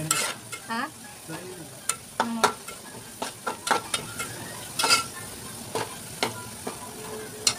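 Sliced onions sizzling in hot oil in a metal pot while a metal spatula stirs them, scraping and clicking against the pot at irregular moments over the steady sizzle.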